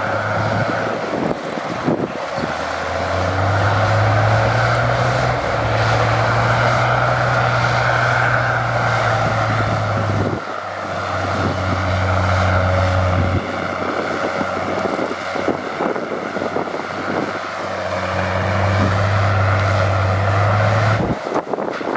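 Heavy earthmoving machinery running: a diesel engine's low steady note that drops away and returns several times as the load changes, over a constant mechanical clatter and rumble.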